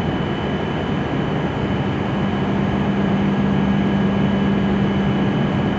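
Steady hum and whine of a stopped E7 series Shinkansen train's on-board equipment and ventilation. A low hum grows a little stronger about a second and a half in.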